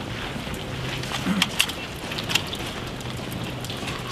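A few sharp clicks and rattles of handled rifles and gear, about a second and a half and again two and a half seconds in, over steady outdoor background noise with a faint low hum.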